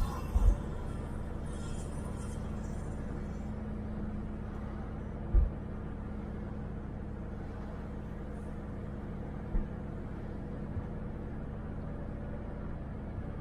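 Car driving, heard from inside the cabin: a steady low rumble of engine and road noise with a steady hum. A few brief low thumps come through, once near the start, about five seconds in and again near ten seconds.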